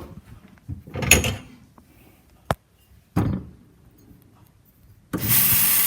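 A few knocks and a sharp click as a cup is fetched and set down, then from about five seconds in a steady rush of water running from a tap into the cup.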